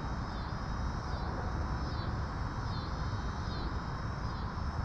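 Steady low outdoor rumble, with a faint high buzz that pulses a little over once a second.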